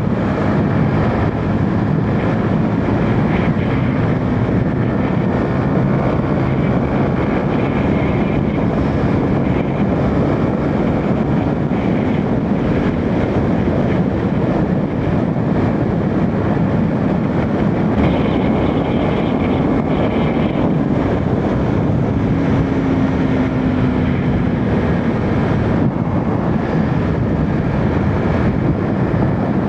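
Steady rush of wind and road noise from a motorcycle ridden at around 100 km/h, with a faint engine hum underneath, picked up by a small mic inside a full helmet behind a furry windscreen.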